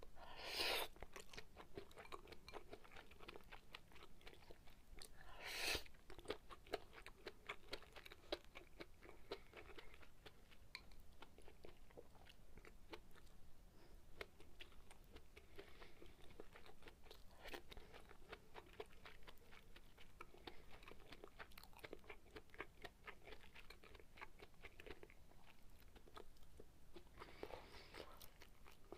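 Close-up chewing of sukiyaki beef and rice: a steady run of soft, wet mouth clicks. Two brief, louder sounds come near the start and about six seconds in.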